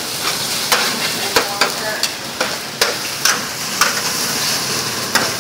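Fried noodles sizzling on a flat griddle while a metal spatula scrapes and clacks against the plate as they are stir-fried: a steady sizzle broken by sharp, irregular clicks.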